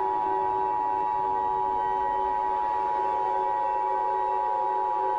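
Emergency Alert System attention signal: two steady tones sounded together as one unbroken alarm tone, the signal that an emergency message follows. A fainter steady drone runs underneath.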